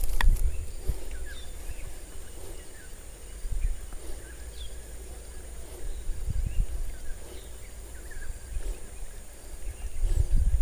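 Outdoor ambience: a low wind rumble on the microphone with faint, short bird chirps scattered through it and a thin steady high hiss. Two sharp clicks come right at the start.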